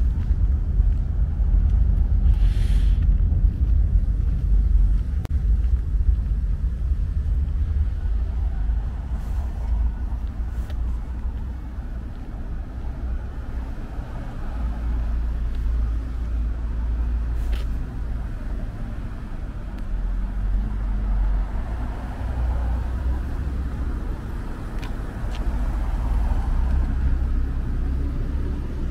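Road traffic: cars passing with a steady low rumble, and a short hiss about two and a half seconds in.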